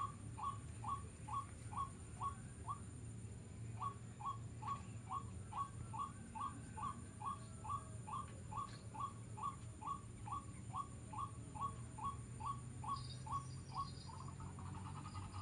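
A bird calling a short rising note over and over, about twice a second, with a brief break about three seconds in. Near the end the calls turn into a faster, rougher chatter.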